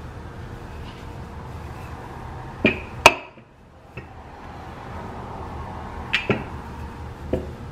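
Wooden rolling pin rolling over biscuit dough on a floured countertop, a steady low rumble broken by several sharp knocks of the pin. The loudest knock comes about three seconds in, and the rolling stops for about a second right after it before resuming.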